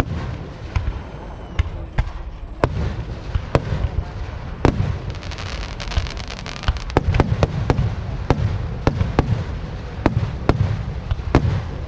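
Aerial firework shells bursting over a constant crackle of sparks, with sharp bangs spaced out at first and then coming in a fast run from about seven seconds in.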